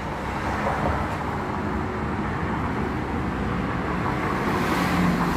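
Steady outdoor road traffic noise, with a slight swell near the end as of a vehicle going by.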